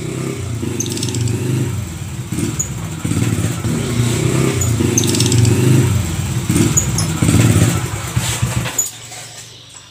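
A motor engine running unevenly, fading away near the end, with a few short high chirps over it.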